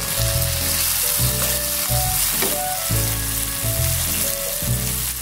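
Sliced chilies, tomato and shallots sizzling in hot oil in a nonstick wok while a spatula stirs them, with a click or two of the spatula on the pan. Soft background music with steady low notes plays underneath.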